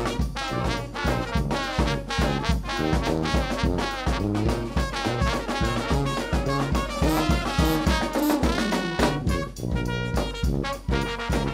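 A brass band playing: trumpet, trombone, saxophone and flute lines over sousaphone bass and a steady beat on bass drum and snare.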